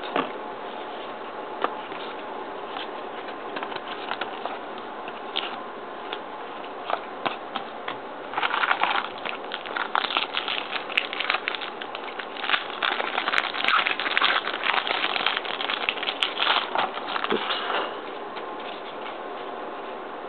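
Crinkling and crackling of a trading-card pack's plastic wrapper being handled and torn open, dense from about eight seconds in until about eighteen seconds. Scattered light clicks come before it, over a steady background hiss.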